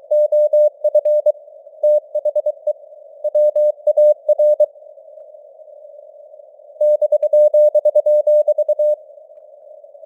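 Morse code (CW) keyed at 23 words per minute: a single steady-pitched beep sent in dots and dashes over a narrow band of simulated radio receiver hiss. The keying stops for about two seconds in the middle, leaving only the hiss, then resumes.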